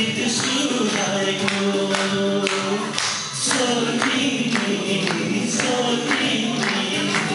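A man singing a song live into a microphone, with long held, gliding notes, over a steady beat of about two strokes a second.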